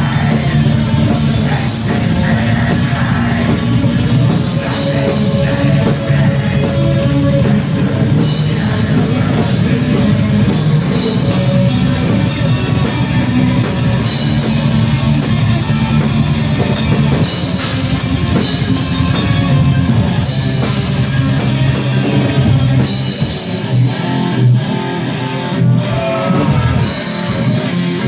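Black metal band playing live: distorted electric guitars, bass and drum kit in a dense, loud wall of sound. About 23 seconds in, the texture opens up into separate heavy hits.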